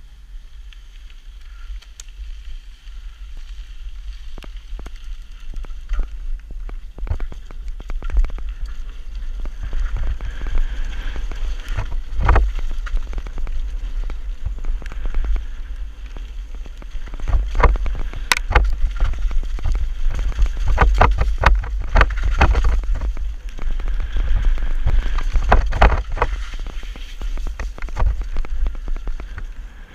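Mountain bike riding down a wet gravel and dirt trail, heard through a helmet-mounted action camera: wind rumbling on the microphone, tyre noise on the gravel and frequent sharp knocks from the bike over bumps. It is quiet at first, then grows louder and the knocks come thick and fast after the halfway point as speed builds.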